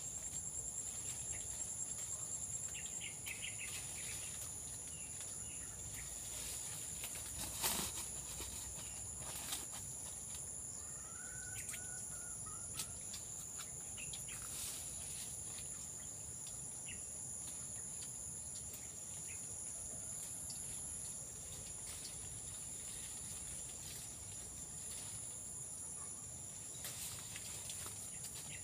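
Steady, high-pitched insect chorus that runs without a break, with scattered snaps and leaf rustles as rambutan clusters are pulled from the tree. The loudest snap comes about eight seconds in. A short bird call comes around twelve seconds in.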